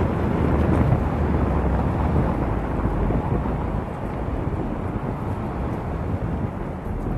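Wind buffeting the microphone of a bicycle-mounted 360 camera as the bike rides along, a steady low rumble mixed with street traffic noise. It eases slightly about four seconds in.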